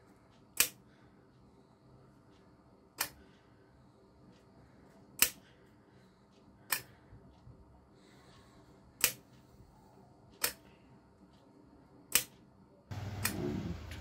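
Seven sharp single clicks, one every two seconds or so, as keys are pressed one at a time on a 4x4 membrane keypad. Near the end a louder stretch of rustling noise begins.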